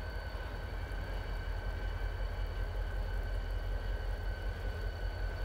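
Diesel freight locomotives running: a low, uneven rumble with thin, steady high whines above it.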